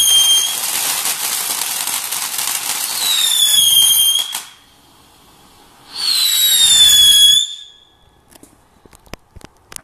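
FOD triple firework fountain spraying with a loud gushing hiss and crackle, over shrill whistles that fall slightly in pitch. It dies down about halfway through, spurts again with whistles for a second and a half, then burns out, leaving only a few faint clicks.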